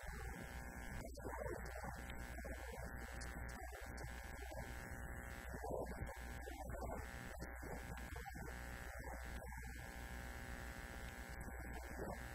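Muffled, hard-to-make-out talking under a steady electrical hum and buzz.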